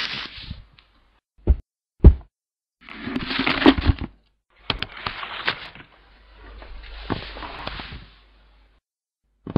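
Handling noises: sharp knocks and taps, the loudest about two seconds in, with stretches of paper rustling between them.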